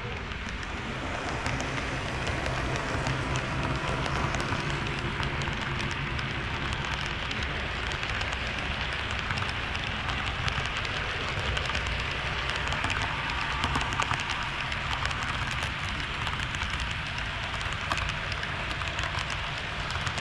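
HO scale model train running on the track: a steady rolling clatter of small metal wheels with many fine clicks over a low hum, swelling over the first couple of seconds and then holding.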